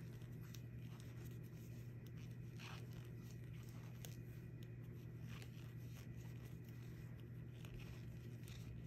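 Faint scratching and light clicks of plastic knitting needles working yarn as stitches are knitted, heard over a steady low hum.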